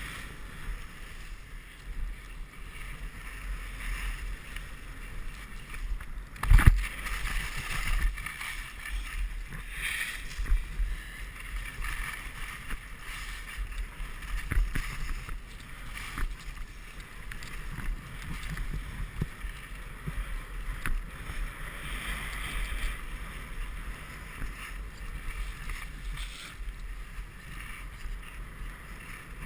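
Skis hissing and scraping over packed snow with wind buffeting the microphone, the hiss swelling and fading every few seconds. One sharp knock about six and a half seconds in.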